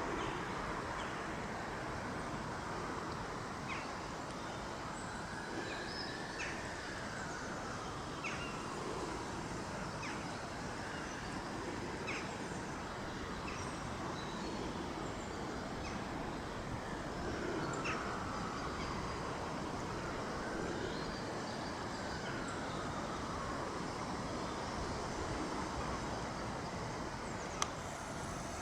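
Outdoor ambience: a steady rushing noise with scattered short bird calls, and now and then a slow rising-and-falling hum like a vehicle passing at a distance.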